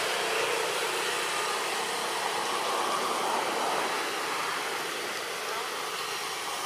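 Steady rushing outdoor noise, with a couple of faint, short wavering whimpers from a baby long-tailed macaque about five seconds in.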